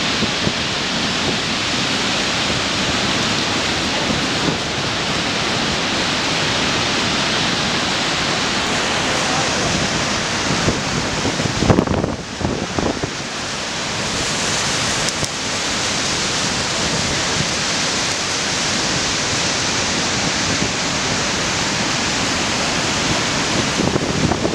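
Yellowstone River waterfall in heavy flow: a loud, steady rush of water pouring over the brink and crashing into the spray below. A brief bump and dip in the noise comes a little before halfway, then the rush carries on unchanged.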